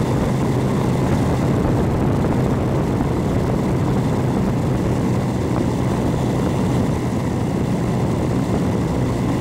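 Radio-controlled Super Hauler airplane's engine and propeller running at a steady pitch, heard from a camera mounted on the plane, over a steady rushing noise.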